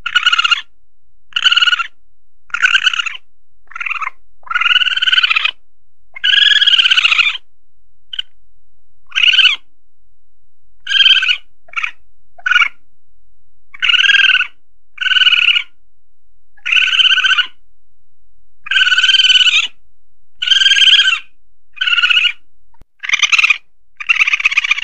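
Lure recording of Asian palm civet (musang pandan) calls: a string of short high calls, most well under half a second and a few drawn out to about a second, repeated with gaps of around a second.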